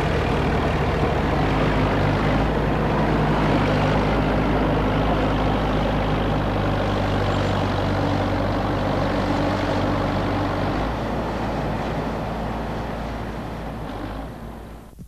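Steady roar of gas and oil gushing from an uncontrolled oil-well blowout, with the steady hum of an excavator's diesel engine working beside it. The sound fades away near the end.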